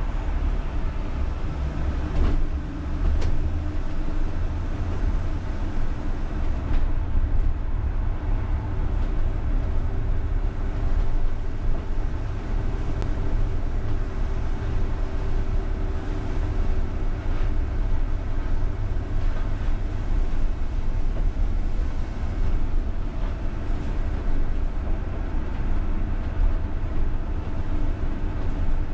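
UTTZ-6241.01 (MAZ-203T) trolleybus heard from the driver's cab while driving on a snowy road: a steady low rumble of tyres and body, with a faint even hum from the electric drive and a few light rattles.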